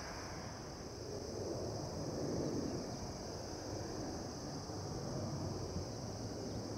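Distant jet engine noise from a Boeing 737-800's CFM56-7B turbofans as the airliner climbs out after takeoff: a steady low, noisy drone that swells a little about two seconds in. A steady high hiss sits over it.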